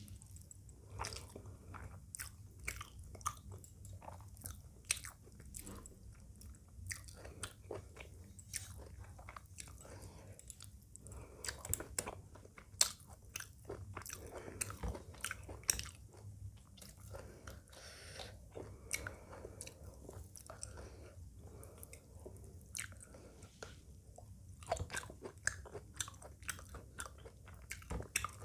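Close-up eating sounds: a person biting and chewing food, with frequent irregular wet clicks and occasional crunches.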